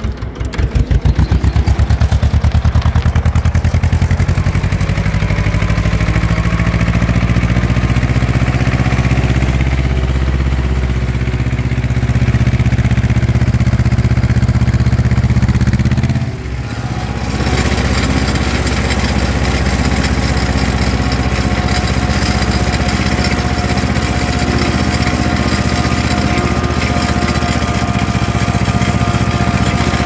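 Ursus C-330M tractor's two-cylinder diesel engine running, its pitch climbing over the first few seconds as it is brought up to working speed. There is a brief drop about sixteen seconds in, then steady running with a thin high tone over the engine as the tractor tills the soil.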